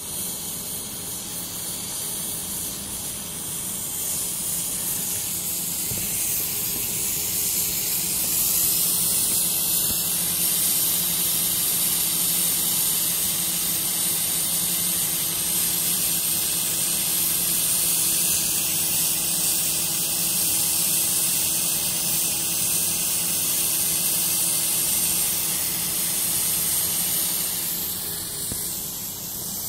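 Oxy-fuel cutting torch on a motorised track carriage hissing steadily as its flame and cutting-oxygen jet bevel-cut steel plate, with a faint low hum beneath. The hiss grows a little louder about eight seconds in.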